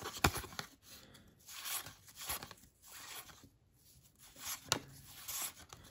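Cardboard trading cards being slid one by one off a handheld stack, giving soft papery swishes with a few sharp clicks.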